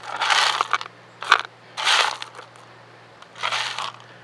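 A heap of freshwater snail (dasulgi) shells clattering and crunching against each other and the plastic basket as a hand scoops and stirs through them, in about four separate bursts.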